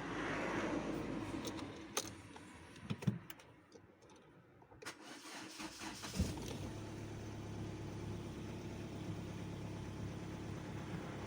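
A few sharp clicks, then a Kia car's engine starts about six seconds in and settles into a steady idle.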